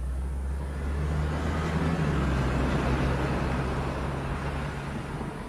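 A car driving past: its engine hum and road noise swell within the first second or so, then slowly fade as it moves away.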